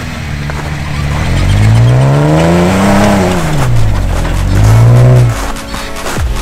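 Jeep Wrangler engine revving twice as its tires spin in deep snow, fighting for traction. The first rev rises and falls over about two seconds; the second is shorter and cuts off suddenly about five seconds in.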